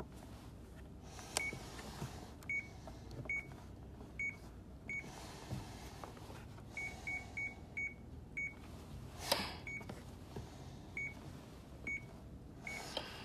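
Short single-pitch electronic beeps, about a dozen, one at a time at uneven intervals, with a sharp knock about nine seconds in.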